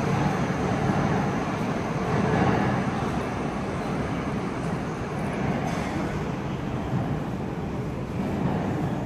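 Steady low rumble of a metro train running through the station, fading slightly.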